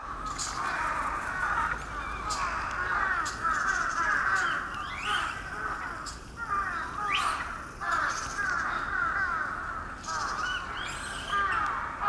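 A troop of Japanese macaques calling: many short, arching calls overlap in a continuous chorus, with a few louder rising calls standing out.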